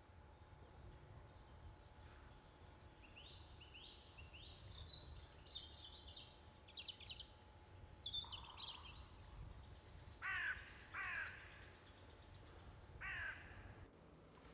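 Faint woodland birdsong, many short high chirps, then a crow cawing three times in the second half over a low background rumble.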